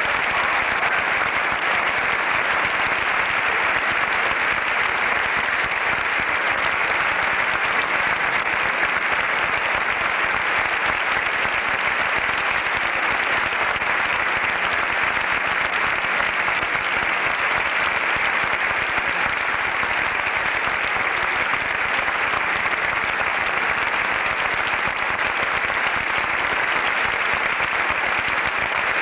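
Theatre audience applauding, a dense, steady clapping that keeps up without a break.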